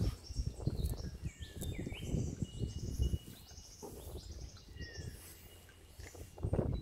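Wild birds chirping and calling, with short up- and down-gliding notes, over uneven low rumbling noise.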